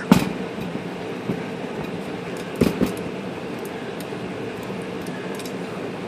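Metal clicks from the IBM Selectric II's carrier and tab mechanism being worked by hand: a sharp click at the start and a short clatter just before the middle, over a steady background hum.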